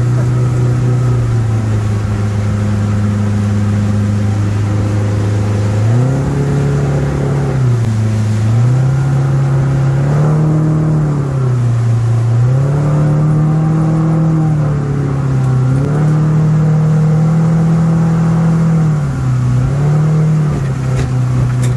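Mercury F150 four-stroke outboard driving a water-jet unit, heard from the boat's cockpit at speed. It runs at a steady note for the first few seconds, then its pitch rises and falls about five times as the throttle is eased and opened again.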